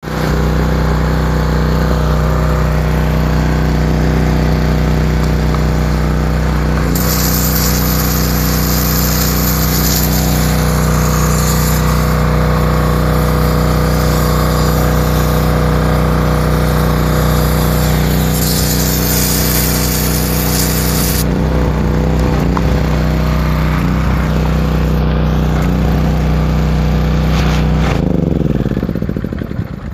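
Seiwa JC-1513GP high-pressure washer's engine running steadily, with a loud hiss, likely from the spray jet, coming in twice for a few seconds each. Near the end the engine is shut off and its pitch falls as it runs down.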